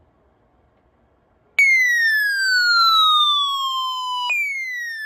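Electronic alert tone announcing a weather warning. About a second and a half in, a loud tone starts suddenly and slides steadily down in pitch; near the end it jumps back up and slides down again.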